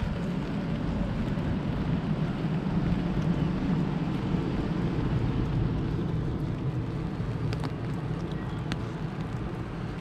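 Steady rain with a low rumble that swells about three seconds in and slowly fades, and a few light taps of drops near the end.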